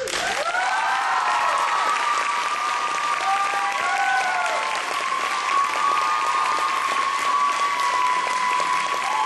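Audience applauding loudly the moment an acoustic guitar song ends, with high whoops rising and falling over the clapping.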